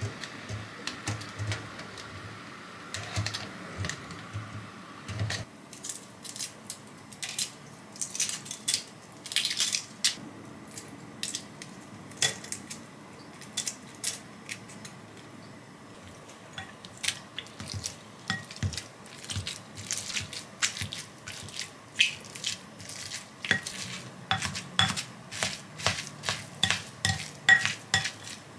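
Kitchen clatter of working with steamed eggs: tongs and eggs clinking against a stainless mesh strainer, eggshells cracking and being picked off, then a metal potato masher tapping repeatedly against a glass bowl as it mashes the eggs. The taps come fast and are loudest near the end.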